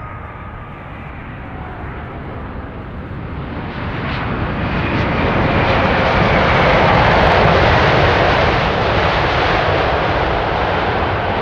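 Rolls-Royce Trent 1000 turbofans of a Boeing 787-8 airliner touching down and rolling out on the runway: a steady jet roar that swells from about four seconds in, is loudest around seven seconds, then holds slightly lower.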